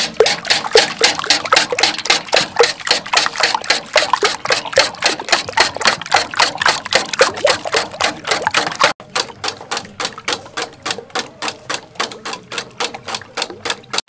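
Dozens of raw eggs being beaten by hand in a large stainless steel bowl: quick rhythmic strokes, about five a second, the utensil clicking against the metal bowl through the liquid egg. A momentary break about nine seconds in, after which the beating goes on a little quieter.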